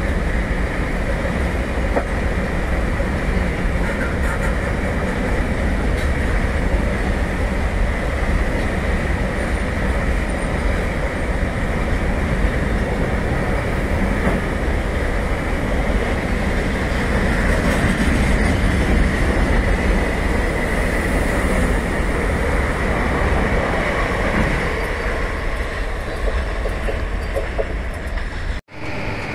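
Freight train of enclosed car-carrier wagons rolling past at speed: a steady rumble of wheels on rail. The sound cuts out briefly near the end.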